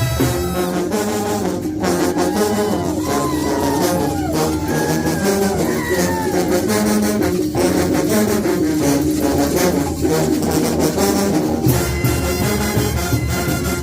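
Mexican banda brass band playing live, with a heavy tuba bass section under trumpets and trombones and a steady percussion beat.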